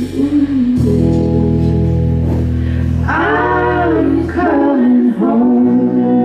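Live band playing long held chords, with a voice singing a short phrase about halfway through.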